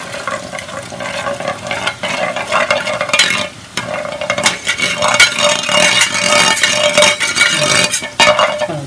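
Gram-flour batter being rubbed through a perforated steel boondi ladle with a second metal ladle, the scraping of metal on metal over the sizzle and crackle of the drops frying in hot oil. It grows louder about three seconds in.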